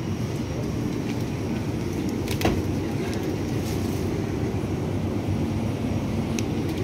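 Steady low rumble of grocery-store background noise, with one sharp click about two and a half seconds in.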